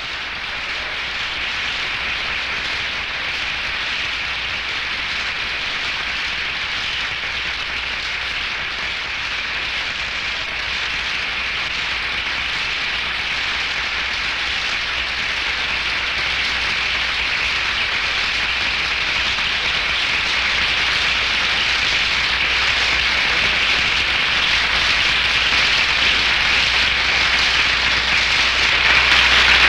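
Large audience applauding: dense, steady clapping that grows gradually louder.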